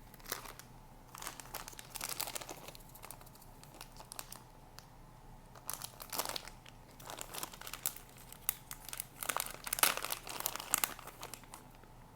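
Plastic bait packaging crinkling and rustling in the hands in irregular bursts, loudest about halfway through and again near the end.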